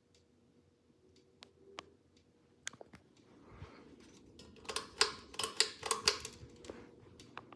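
Ceiling fan with a faint steady hum, and a few sharp clicks followed by a dense run of clicking and rattling about five to six seconds in.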